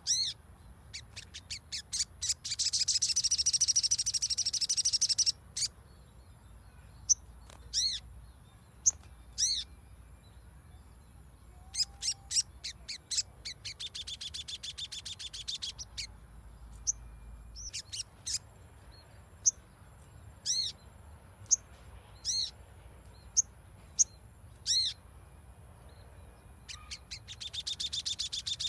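Little spiderhunter (sogon) singing: sharp, high single call notes repeated every second or so, broken by long, fast rattling trills. The first trill comes about two seconds in, another in the middle, and a third starts near the end.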